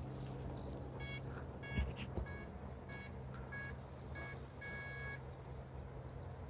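Electronic beeping: seven short beeps about every 0.6 s, the last one held longer, over a steady low hum, with a low thump about two seconds in.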